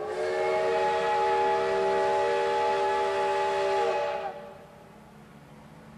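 Steam locomotive whistle blowing one long blast of about four seconds: a chord of several steady tones over a rushing hiss of steam, starting sharply and cutting off cleanly.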